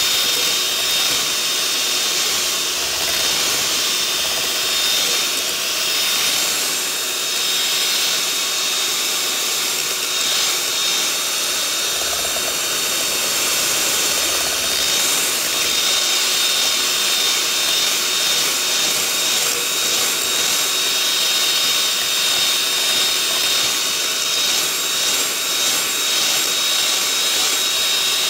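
Electric hand mixer running steadily, its beaters whirring through a thick batter in a bowl, with a steady high motor whine.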